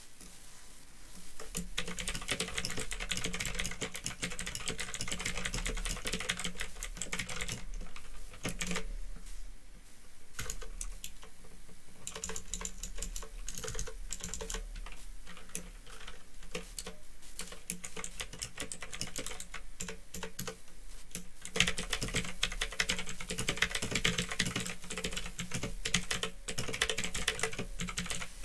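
Continuous fast typing on a Phantom Tecware 87 mechanical keyboard with clicky Otemu blue switches: a dense, irregular clatter of key clicks that starts about a second and a half in and gets louder in the last several seconds, picked up by an old, low-quality microphone.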